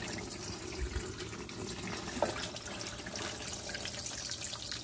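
Bone broth poured in a steady stream from a stainless steel pot through a metal colander into a large stainless steel bowl, the liquid splashing and trickling, with a few small ticks.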